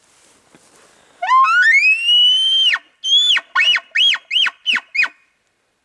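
Elk bugle call blown by a hunter, answering a bull's bugle heard nearby: a long whistle that climbs from low to high, holds, and breaks off about a second and a half later, then about six short chuckle notes.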